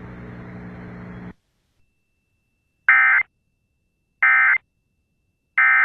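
Emergency Alert System SAME digital data bursts: three short, identical, buzzy warbling bursts about a second and a half apart, the End of Message code that closes the alert. Before them, a steady hum and hiss from the radio feed runs for about a second and then cuts off.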